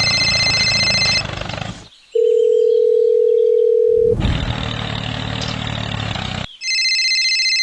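Electronic sound effects: a steady single tone like a telephone dial tone, held for about two seconds in the middle, between stretches of loud noise carrying several high steady tones that stop and start abruptly.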